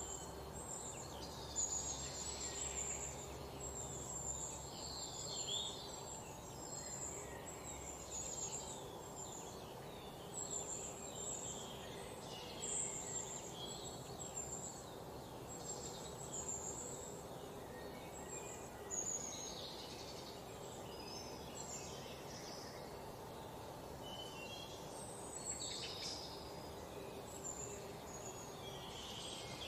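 Small birds chirping and twittering in many short, quick calls throughout, over a steady low background noise.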